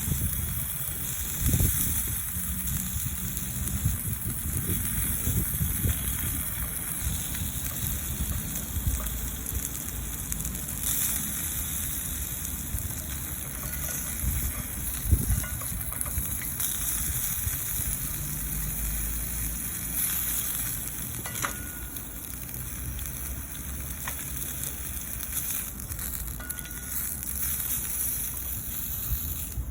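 Ham and wiener sausages sizzling over a campfire, with the fire crackling: a steady frying hiss with scattered small pops.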